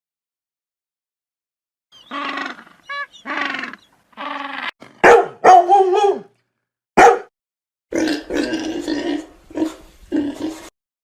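A series of animal calls from a sound-effect library, starting about two seconds in: around nine separate short barks and grunt-like calls, some with a falling pitch, with short pauses between them.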